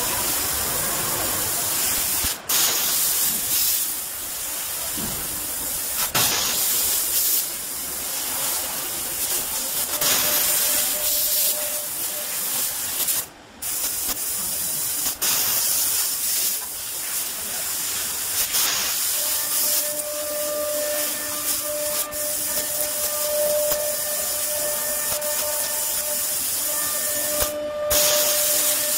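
IPG 2 kW fiber laser cutting machine cutting 5 mm stainless steel plate: a steady loud hiss from the cutting head's gas jet, broken by short gaps between cuts about two seconds in, around thirteen seconds in and near the end. In the last third a faint steady whine rides over the hiss.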